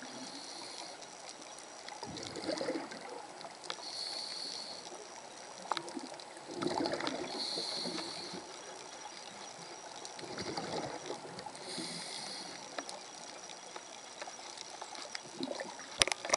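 Scuba diver breathing through a regulator underwater: a hiss on each inhalation, then a gurgling rush of exhaust bubbles, repeating about every four seconds, with a few sharp clicks.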